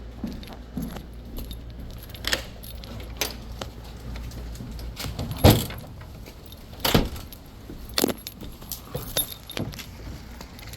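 Keys jangling along with irregular sharp knocks, about one a second, as someone walks carrying a camera; the loudest knock comes about five and a half seconds in. A low hum dies away over the first few seconds.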